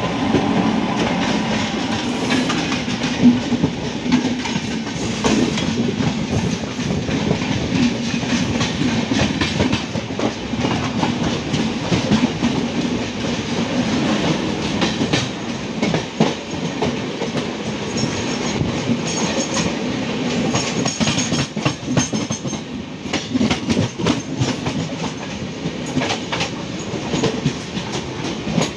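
Passenger train running at speed, heard from an open coach doorway: a steady rumble with wheels clattering over the rail joints. Another train's coaches pass close by on the next track.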